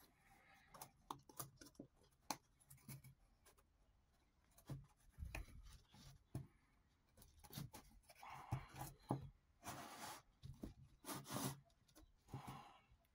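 Cardboard tape-roll cores rubbing and scraping as they are pushed one inside another, with light taps and clicks. The sound is faint, with a few longer scraping passes in the second half.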